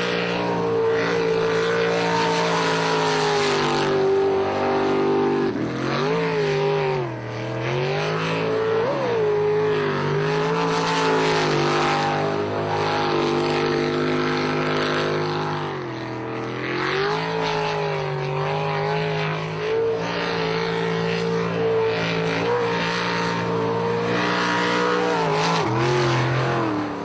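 Jet boat engine running hard at high revs. Its pitch drops and climbs back several times as the throttle is eased and reapplied through the turns of a tight, winding course.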